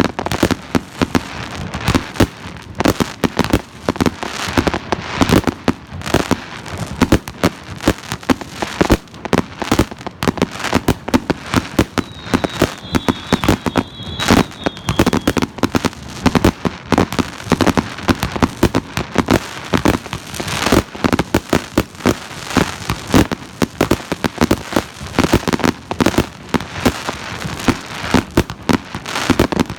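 A 100-shot firework cake with a double-shot effect firing in rapid, continuous succession: dense sharp bangs several times a second, with no pause.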